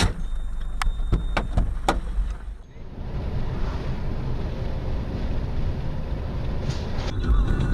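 Car driving, heard from inside the cabin: a steady low rumble of engine, tyres and wind. A few sharp clicks come in the first two seconds, before a brief dip.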